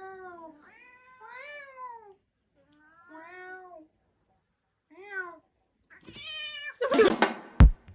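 Domestic cat meowing, about six separate meows spread over several seconds, each rising then falling in pitch, the last few shorter. A louder, noisy burst of sound comes in near the end.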